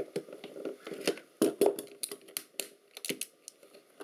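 Knife blade scraping and prying along the glued seam of a Philips V8-4 ultrasound probe's plastic case, with irregular clicks and creaks as the glue gives and the plastic flexes.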